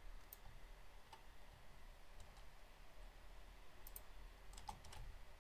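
Faint, scattered clicks of a computer mouse and keys being worked at a desk, a few at a time with short gaps, against near silence.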